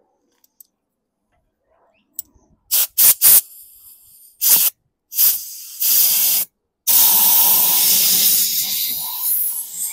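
Compressed-air blow gun hissing: several short blasts, then one long steady blast that tapers off near the end, drying out a mower's fuel tank after water was drained from it.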